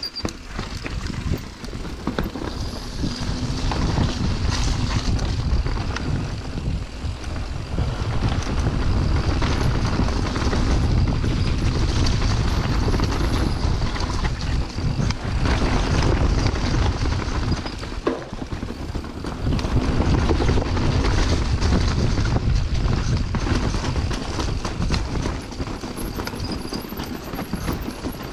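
Mountain bike descending a rough natural trail: tyres rumbling over dirt, roots and rocks, with wind buffeting the camera's microphone and frequent knocks and rattles from the bike over the bumps.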